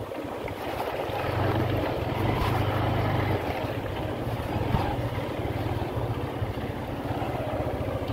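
Honda Unicorn 150 motorcycle's single-cylinder engine running as it is ridden, getting louder about a second in, with wind noise on the microphone.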